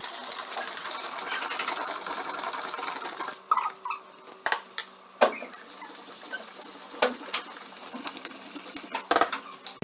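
A spoon stirring a slime mixture of glue, shaving cream, food colouring and water in a bowl: quick continuous scraping for about the first three seconds, then scattered sharp knocks of the spoon against the bowl.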